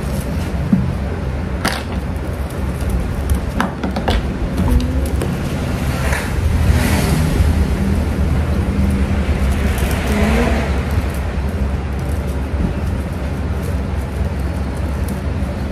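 Steady low rumble of road traffic, swelling as vehicles pass about six and ten seconds in. Scattered light clicks and rustles of crepe paper being handled and wrapped.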